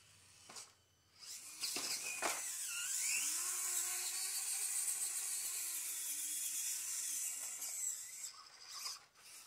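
The Axial SCX24 micro crawler's small brushed electric motor and gear drivetrain whining as it drives, after a few sharp clicks. The pitch climbs about three seconds in, holds, then drops away before cutting out near the end.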